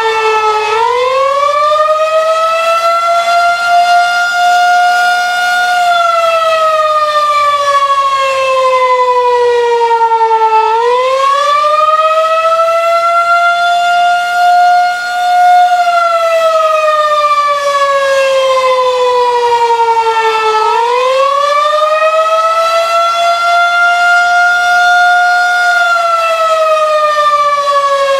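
Federal Signal 2001-130 outdoor warning siren sounding the attack signal during a tornado siren test. Its loud tone wails up and down in slow cycles about ten seconds long, rising three times and falling again near the end.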